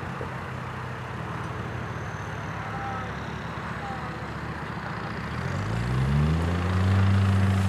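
Land Rover Discovery's engine running at low revs as it crawls off-road, then revving up about five and a half seconds in and holding at the higher, louder revs near the end.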